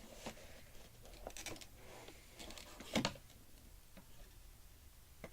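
Small clicks and rustles from handling the GoPro camera and its packaging, with one sharper click about three seconds in.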